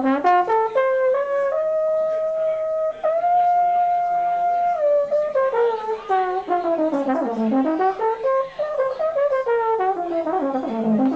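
Trombone playing a solo klezmer-style melody: quick notes, then long held notes, then running phrases with wide smooth slides down and back up.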